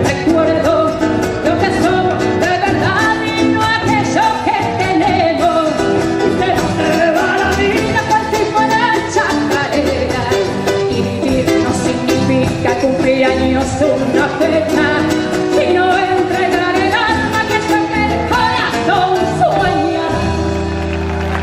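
Latin American folk song: a voice singing over instrumental accompaniment.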